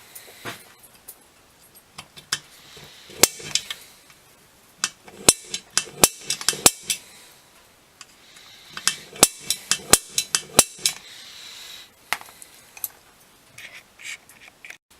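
Tools and a metal workpiece being handled on a workbench while a hole saw is readied: a run of sharp metallic clinks and knocks, clustered in quick bunches.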